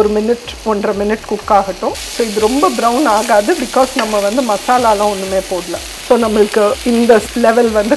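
Salted mahi-mahi fish sizzling in oil in a frying pan, the sizzle thickening about two seconds in. A louder, wavering pitched melody runs over it.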